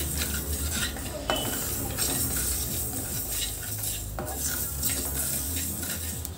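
A spatula stirring and scraping mustard and fenugreek seeds around a dry steel kadai, the seeds rattling over the metal as they dry-roast, with a few small clicks.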